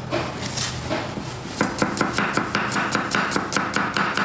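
Rapid, regular knife chops on a cutting board, about four to five strikes a second, starting about a second and a half in.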